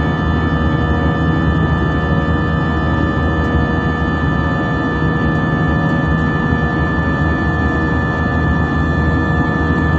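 Steady cabin noise of a jet airliner in flight, heard inside the cabin: the turbofan engines' constant roar with a few steady whining tones over it.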